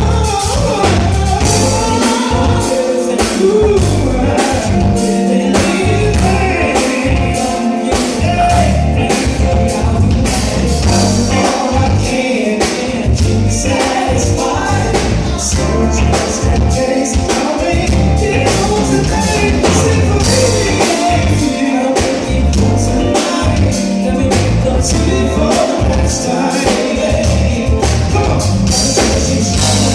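Live band music with singing over a steady beat and heavy bass.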